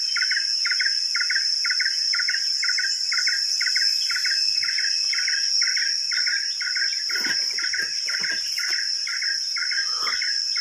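Insects calling in a tropical plantation: a steady high-pitched drone with a repeating chirp pulsing about three times a second.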